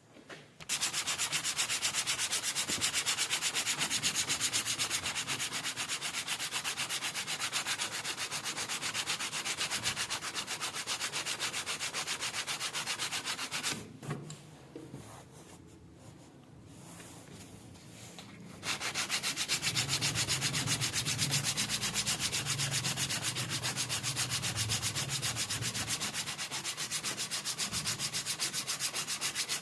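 Abrasive rubbing on rusty steel pliers, scraping rust away in fast, even strokes. It stops for a few seconds about halfway through, then starts again.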